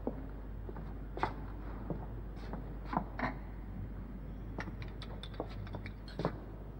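Quiet room sound over a steady low hum, with scattered soft knocks and rustles, the clearest about a second in, around three seconds in, and near the end.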